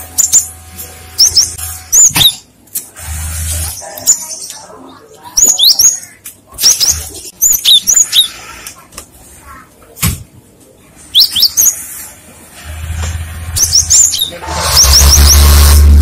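Cinereous tit (gelatik batu) calling: short, high whistled notes that sweep downward, given in quick groups of two to four. A loud rushing noise with a low rumble comes in about a second and a half before the end.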